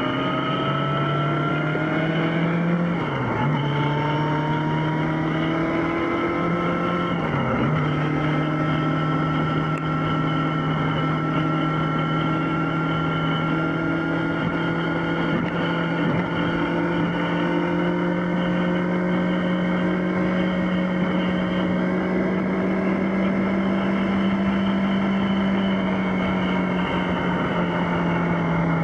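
Yamaha XJ6's inline-four engine under way on the road: revs rise, then drop briefly twice a few seconds apart as it shifts up, then it holds a steady cruise with the pitch creeping slowly higher.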